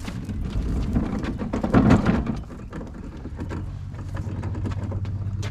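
Caster wheels under a truck camper's wooden platform rolling and rumbling over a concrete driveway, with a clunking surge about two seconds in as they go over a bump. A steady low hum starts about three and a half seconds in and keeps building.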